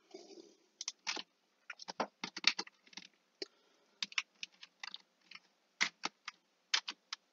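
Computer keyboard keystrokes, sparse and irregular, a few taps at a time with short pauses between.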